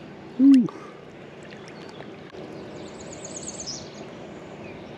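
Steady sound of running river water, with a man's brief grunt or hum about half a second in. A small bird gives a high, rapid trill around three seconds in.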